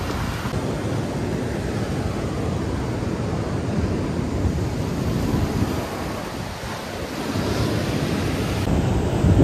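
Ocean waves breaking and washing up the beach in a steady rush, with wind rumbling on the microphone; a wave surges louder near the end.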